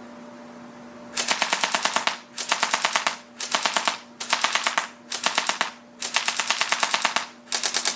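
Double Eagle M83 electric airsoft rifle with a metal gearbox firing on full auto: seven short rattling bursts, starting about a second in, with brief pauses between them.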